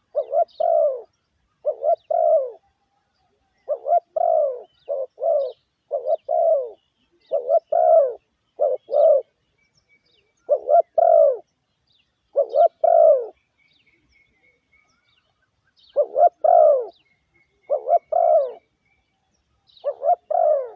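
Spotted dove cooing: short phrases of two or three quick, hoarse, falling coos repeated over and over, with a couple of longer pauses.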